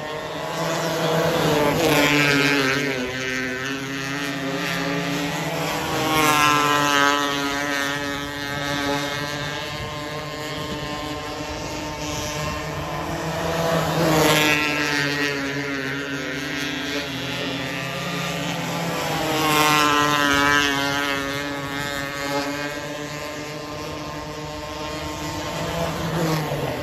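Engines of 270 micro sprint cars lapping a dirt oval in practice. The sound swells each time a car passes close by, about every five to seven seconds, then drops back as it goes round the far side. The engine pitch rises and falls through the corners.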